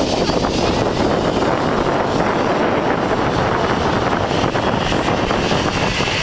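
Steady rushing noise of wind and water aboard a sailing yacht under way.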